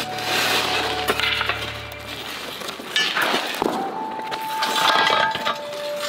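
A steel pry bar clinks and knocks against an iron molding flask, and hardened foundry sand crumbles and scrapes as the flask is pried loose from the mold. Background music plays underneath.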